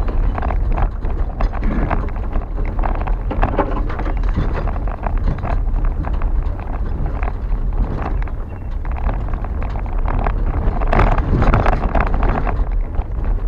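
A truck creeping down a rough, rutted dirt track, heard from inside the cab: a steady low rumble of engine and tyres with frequent knocks and rattles as it bumps along.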